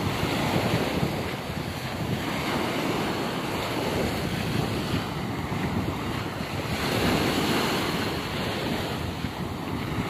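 Small sea waves breaking and washing up over a sandy beach, the surf swelling and easing every couple of seconds, with wind buffeting the microphone.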